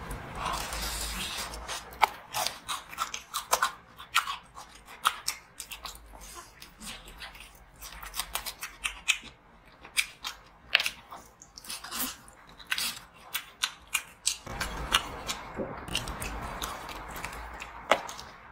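Close-miked crunching and chewing of crispy battered fried chicken, the crust cracking in many sharp, irregular crunches. There are a couple of longer rustling stretches, near the start and again near the end.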